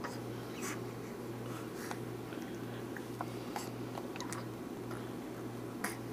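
An infant's small lip smacks and mouth clicks, scattered about once a second, over a steady low hum.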